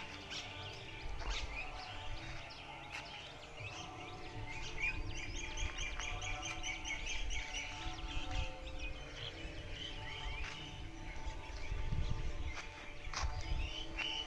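Wild birds calling and chirping in trees, with a fast chirping trill from about five seconds in lasting a couple of seconds, over a low rumble.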